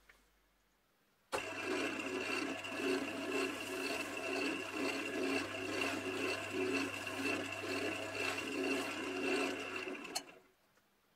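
Wood lathe running with a handful of wood shavings pressed by hand against the spinning elm vase: a steady motor hum and whine under a rushing friction sound with a soft pulse about twice a second. It starts suddenly about a second in and cuts off suddenly near the end.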